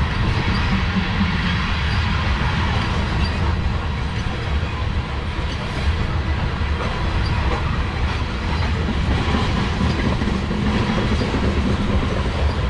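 Freight train of coal hopper cars rolling past: a steady low rumble of steel wheels on the rails.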